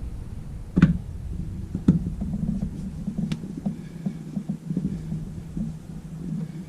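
A few sharp metallic clicks as a new bolt and crush washer are handled and fitted into a motorcycle fork lower, then light irregular tapping over a low steady hum.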